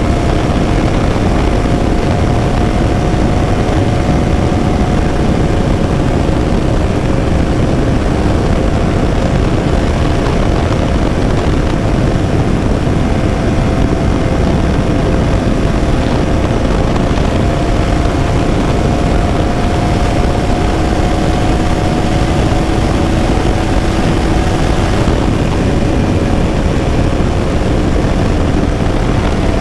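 KTM Duke 200's single-cylinder engine running at steady, nearly constant revs as the motorcycle cruises, under heavy wind noise on the microphone.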